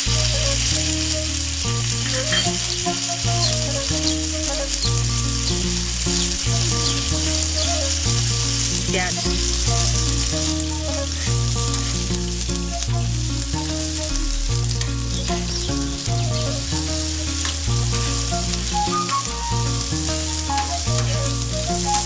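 Tomatoes, onion, ginger, dal, dried red chillies and curry leaves sizzling in hot oil in a pan with a steady hiss, stirred now and then with a metal spatula: the vegetables being sautéed for a tomato chutney. Soft background music with low notes runs underneath.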